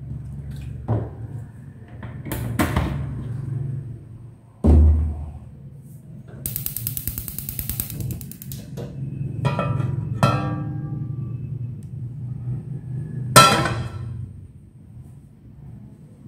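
Kitchen handling noises around a frying pan heating oil on a cooktop, over a steady low hum. There is a dull thump about five seconds in, a rapid run of ticks lasting about two seconds, a few ringing clinks, and a sharp clatter past the middle.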